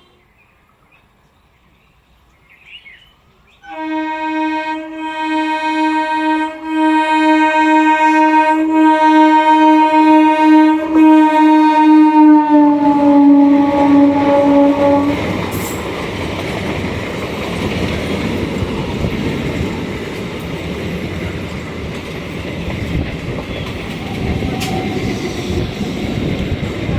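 Indian Railways train horn sounding one long blast of about eleven seconds after a few quiet seconds, its pitch dropping slightly near the end as the train comes level. Then the train rushes past with the rolling rumble and clatter of its wheels on the rails.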